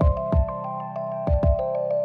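Background music: an electronic track with held synth chords over a beat of deep kick-drum hits, which come in pairs.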